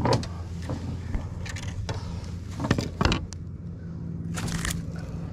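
Handling noises while a hooked snook is landed: scattered knocks and rustles, and a brief rush of noise about four and a half seconds in, over a steady low hum.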